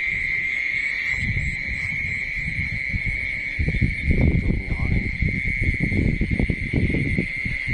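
A steady, unbroken high insect trill runs throughout. From about three and a half seconds in, louder irregular rustling and knocking sounds close to the microphone join it.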